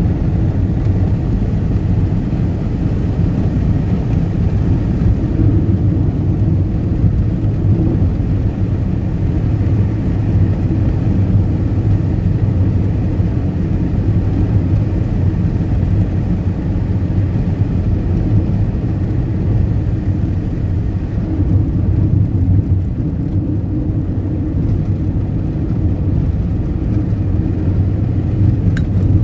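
A car on the move: a steady low engine and road rumble that holds at an even level.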